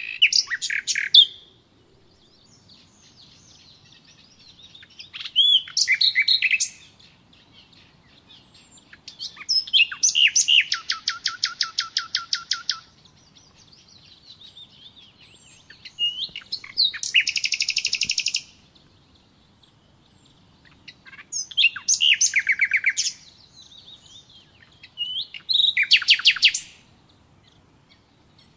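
A songbird singing in short phrases of chirps and fast trills, six phrases with pauses between them. The longest is a trill of about three seconds near the middle.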